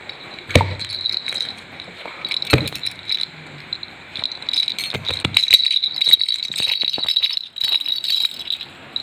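Toddler's plastic baby rattle shaken in irregular bursts, rattling and jingling, with a couple of sharp knocks in the first few seconds and the busiest shaking in the second half.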